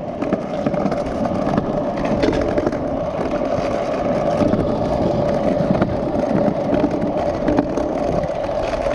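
Stunt scooter's wheels rolling over pavement: a steady rumble with a constant hum that runs without a break.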